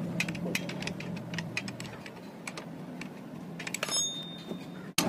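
Ratchet wrench clicking in quick, irregular runs as a bolt on the motorcycle's footrest bracket is turned, over a steady low hum. A thin, high metallic ring about four seconds in.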